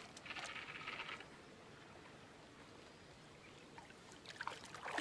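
A hooked chub splashing at the surface as it is played in close to the bank, in a few quick splashes near the end. A short rasping rustle comes about half a second in.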